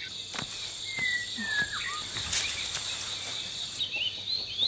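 Rural ambience: a steady high insect drone with birds calling over it, a falling whistle about a second in and a run of short chirps near the end. A few faint clicks.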